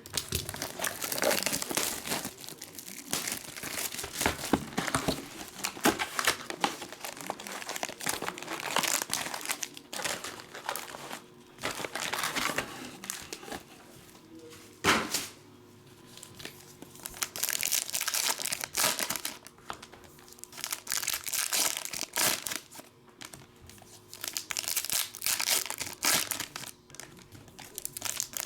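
Plastic wrappers on packs of trading cards being torn open and crumpled by hand, an irregular run of crinkling and tearing.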